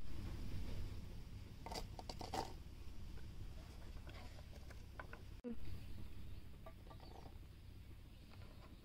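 Light knocks and clatter of chopped apple and carrot pieces dropping into a stainless-steel mixer-grinder jar: a cluster about two seconds in and a few more later, over a steady low hum.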